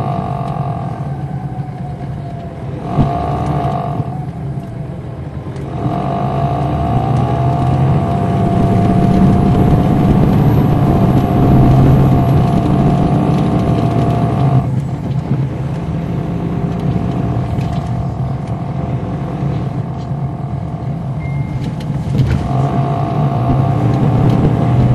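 Caterpillar C13 diesel engine of a 2007 MCI D4500CL coach heard from on board, running with a steady low drone. A higher whine comes in and drops away several times as the coach pulls and eases off. It is loudest in the middle stretch and falls back about two-thirds of the way through.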